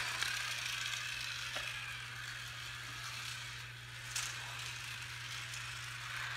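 Battery-powered Magic Tracks toy car running along its plastic track, its small motor whirring and the wheels rattling. The sound fades a little around the middle as the car moves away, then grows louder as it comes back, with a sharp click a little past halfway.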